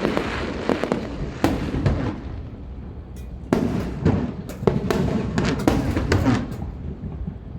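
Aerial fireworks display: a rapid string of bangs and crackling from bursting shells, densest from about three and a half to six and a half seconds in.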